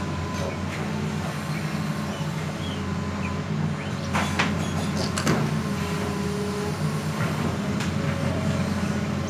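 Hitachi Zaxis 200 crawler excavator's diesel engine running steadily as the machine swings and moves its boom, with a couple of sharp knocks about four and five seconds in.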